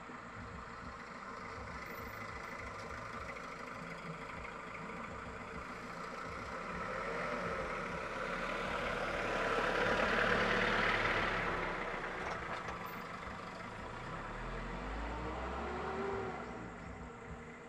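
Vehicle engines running on the road. The noise swells to its loudest about ten seconds in as a vehicle passes close, then a truck's low engine rumble with a rising tone comes in near the end as it pulls up close.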